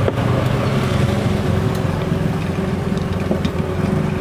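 A motor running steadily with a low hum, with a few faint clicks over it.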